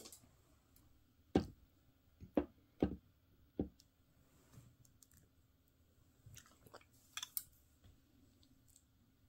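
Metal spoon clinking and scraping against a plate while scooping fried rice: a few sharp clinks in the first four seconds, then softer ones around seven seconds in.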